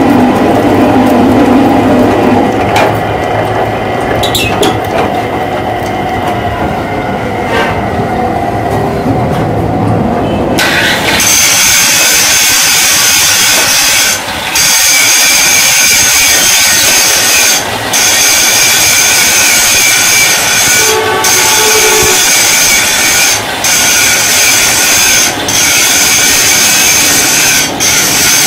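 Metal lathe running while cutting a coarse screw thread into a steel bar, a steady loud machine-and-cutting noise. About a third of the way in the sound switches abruptly to a harsher, higher hiss, which breaks off briefly every two to three seconds.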